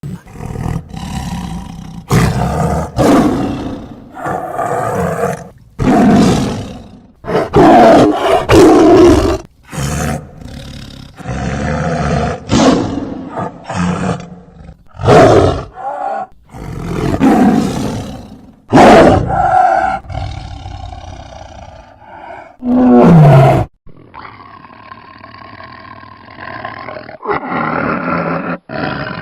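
A tiger sneezing and calling: a dozen or so loud, explosive blasts one after another, cut off abruptly between them. A quieter, steadier stretch of its sound follows in the last few seconds.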